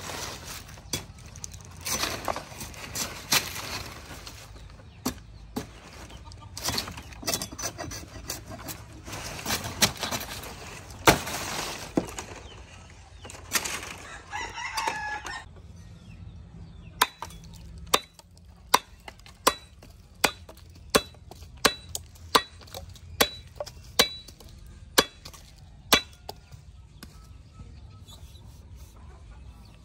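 Billhook blade slashing through palm fronds, with leaves rustling and irregular cuts. This is followed by about a dozen sharp chops at a steady pace of more than one a second, each with a short metallic ring. A rooster crows once, midway.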